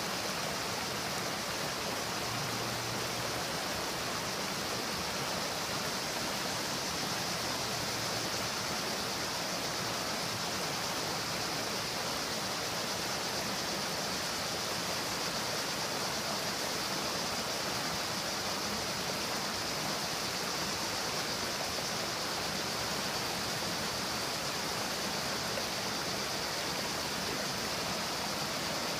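Creek water rushing steadily over rocks in a shallow riffle.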